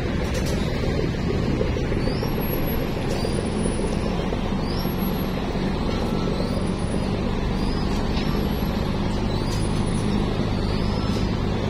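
Chao Phraya express boat's engine running steadily underway, a low drone under the rush of water past the hull.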